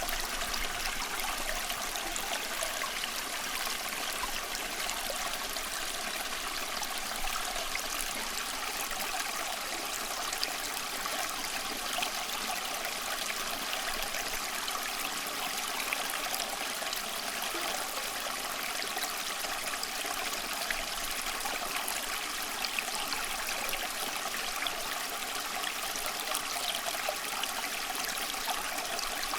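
Running water of a small stream trickling and splashing steadily, with many small bright splashes and little deep rumble.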